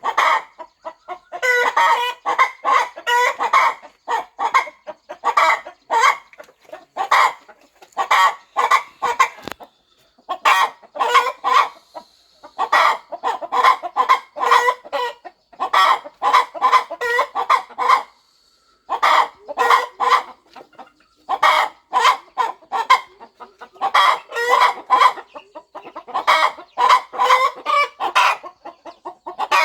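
Broody hen clucking in runs of quick clucks broken by short pauses.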